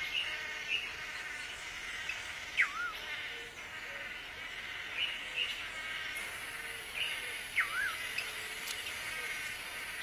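Swallow-tailed manakin males calling during their cooperative leap-frog courtship display: short, buzzy, nasal notes, and twice a call that falls steeply and then rises a little.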